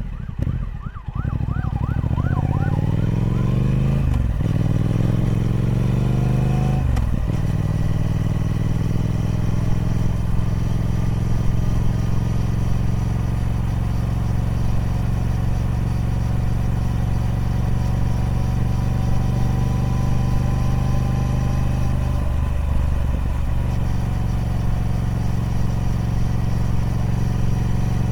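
Triumph Speed Twin 1200's parallel-twin engine through the stock exhaust, accelerating hard through two upshifts in the first seven seconds, then running at a steady cruise.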